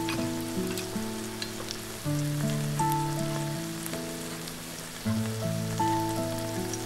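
Dried pumpkin strips sizzling and simmering in broth with perilla seed powder in a cast-iron skillet, with faint scattered crackles. Soft background music with held notes plays over it.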